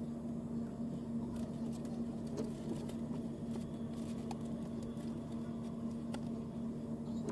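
Vehicle engine idling steadily, heard from inside the cab as an even hum, with faint scattered clicks.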